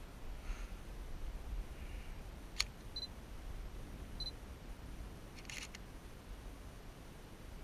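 A DSLR camera being used: a sharp click, two short high autofocus-confirmation beeps, then a brief clatter of shutter clicks a few seconds later, over a faint low rumble.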